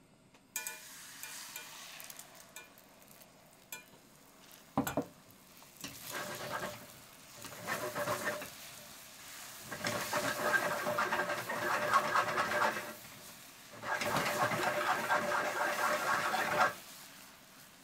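Beaten eggs hitting hot oil in a Teflon-coated frying pan and sizzling, then a rubber spatula stirring them fast against the pan in rhythmic scraping bursts, with one sharp knock about five seconds in. The stirring grows louder and longer in the second half and stops about a second before the end.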